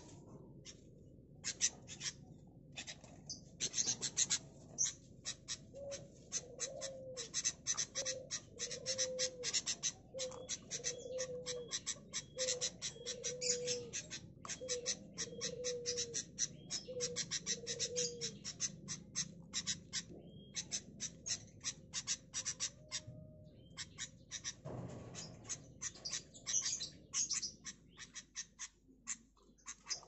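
Long-tailed shrike pecking dry feed pellets out of a plastic feed cup: a long run of sharp beak clicks and taps, coming in quick clusters. Through the middle a low, short call repeats about once a second.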